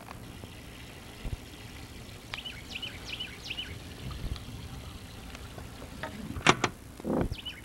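Steady low wind rumble over an open lake, with a bird calling a quick run of about five short high chirps a couple of seconds in. A sharp knock about six and a half seconds in is the loudest sound, followed by a smaller one.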